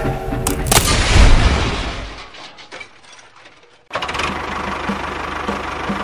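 A loud crash sound effect with a heavy low rumble about a second in, dying away over the next two seconds, as a toy locomotive tumbles into a pit in the sand. After a short lull, a steady pulsing sound cuts in abruptly about four seconds in.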